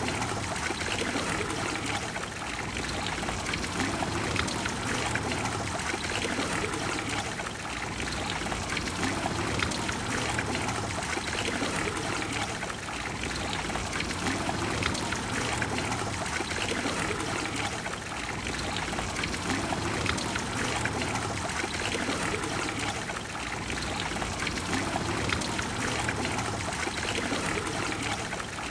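Water of the Trevi Fountain falling and splashing into its basin: a steady, dense rush that swells and dips gently every few seconds.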